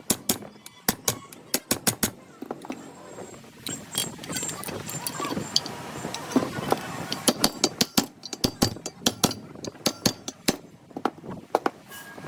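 Sharp taps and knocks in quick irregular clusters: hand tools working on ceiling fan parts during a bearing replacement.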